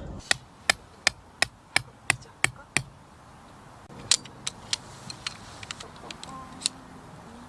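Firewood being split by batoning: a knife blade driven into a log by repeated strikes of a baton, about three sharp knocks a second for the first three seconds, then a few lighter, irregular knocks.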